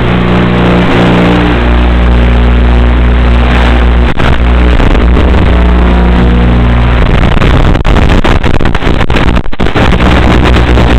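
Steady motor hum from an FPV aircraft, carried over the 5.8 GHz analog video link's audio channel. From about seven seconds in it is broken up by rapid crackling static and dropouts.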